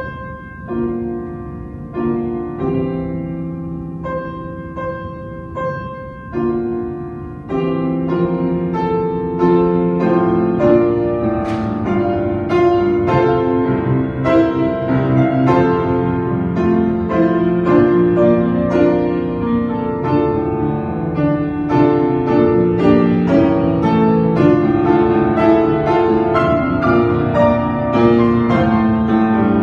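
Piano music: a slow, quiet opening that turns fuller and louder from about seven seconds in.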